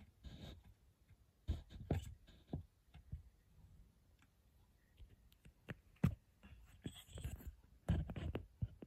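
Handling noise at a stereo microscope: scattered small clicks, taps and scrapes, irregular, with a sharp tap about six seconds in and a cluster of louder knocks near the end.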